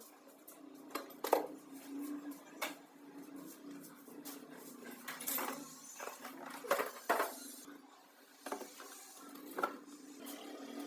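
Irregular clinks and knocks of hard objects being handled, about a dozen spread unevenly, over a steady low hum.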